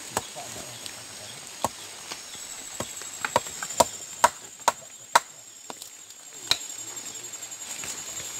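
Sharp chops of a blade striking agarwood, irregular at first, then coming about twice a second in the middle, with one last blow near the end.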